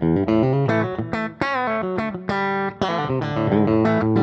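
Electric guitar played through a Kemper Profiler profile of a small Fender Princeton amp: a quick lick of single plucked notes with a string bend about a third of the way in. The tone is darker than intended.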